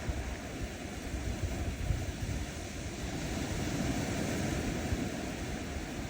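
Gentle ocean waves washing onto a sandy beach: a steady surf wash with a low rumble.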